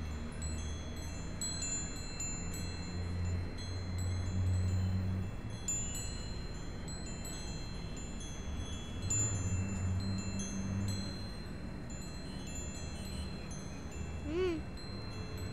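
Small hanging brass bells of a wind chime tinkling: many light, high, overlapping rings that fade slowly, over a low rumble that swells twice. A short rising-and-falling call sounds near the end.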